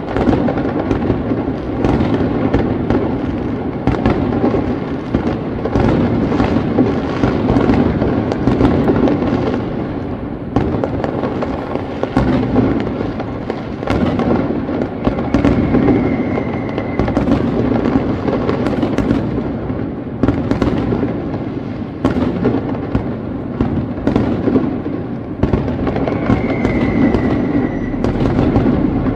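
Aerial firework shells bursting one after another in rapid, unbroken succession: a dense run of bangs and crackling.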